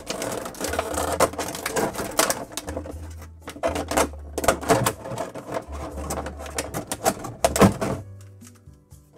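Clear plastic blister tray crinkling and crackling in clusters as an action figure is pulled and worked out of it, with background music underneath.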